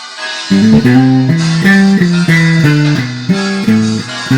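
Jazz-fusion band playing live, with the electric bass guitar out front in a riff of short, quickly changing notes under guitar or keyboard chords. The bass drops out for about half a second at the start, then comes back in.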